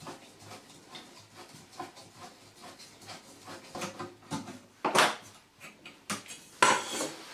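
Copper pipe being cut with a pipe slice: faint irregular clicking as the cutter is turned around the pipe, then a sharp knock about five seconds in and a louder rattling stretch near the end.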